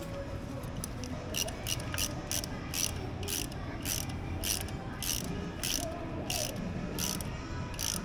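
Hand ratchet with a hex-bit socket clicking about twice a second as it is swung back and forth, turning a final-drive oil plug in. The clicking starts a little over a second in.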